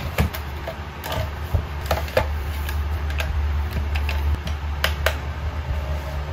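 Plastic clicks and knocks as a foldable desk fan is opened out and its telescoping stem is pulled up, with sharp clicks scattered through. A steady low hum runs underneath.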